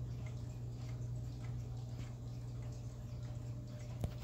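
Howard Miller 'Jennison' pendulum wall clock ticking steadily, about two ticks a second, over a steady low hum. A single sharper click sounds near the end.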